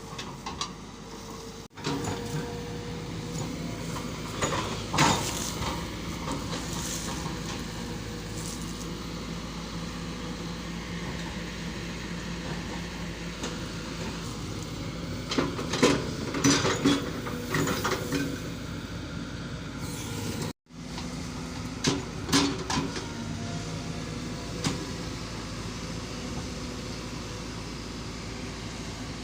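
A heavy motor-driven machine running steadily with a low hum, with several short bursts of clattering knocks.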